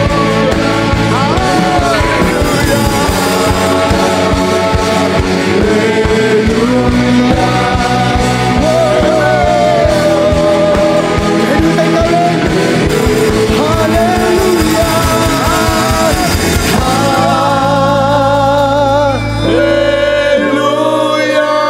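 Live worship band with singers performing a praise song: voices over chords with a steady drum beat. The drums drop out about three-quarters of the way through, leaving held chords under the singing.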